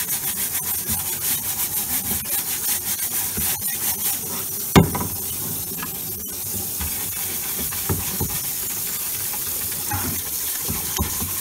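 Running water pouring onto an etched magnesium plate in a plastic tank, a steady hiss, while the plate is scrubbed by hand in quick strokes over the first few seconds. A single sharp knock sounds about five seconds in.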